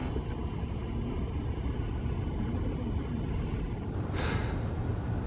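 Steady low rumble of background traffic, with a brief hiss about four seconds in.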